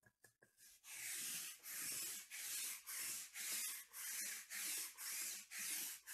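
Sticky lint roller rolled back and forth across a cloth mat: a run of even, rasping strokes starting about a second in, roughly one and a half strokes a second, after a few light clicks.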